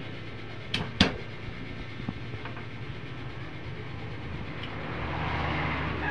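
Chef's knife striking a wooden chopping board while cutting garlic cloves: two sharp knocks about a second in, then a few fainter taps. A steady low hum runs underneath, and a rustling noise builds near the end.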